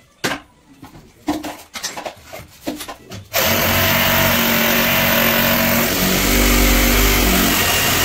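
A few sharp knocks and clicks of work handling. A little over three seconds in, a hand-held power tool starts suddenly and runs steadily at full speed, with a heavier low rumble for a second or so near the end as it bites into the work.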